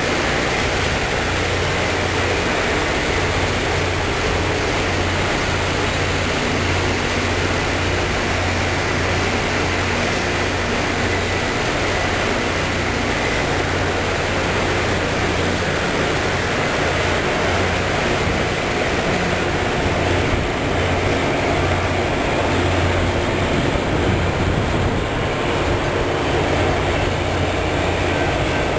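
LORAM RG311 rail grinder passing at work, its grinding stones on the rail making a continuous loud grinding hiss over a steady low hum from its engines.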